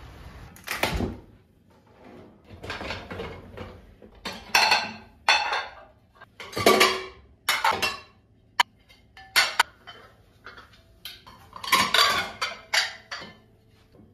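Ceramic plates clattering and clinking as they are lifted out of a dishwasher rack and stacked, with lighter clinks of cutlery and glass, a dozen or so separate knocks with short rings.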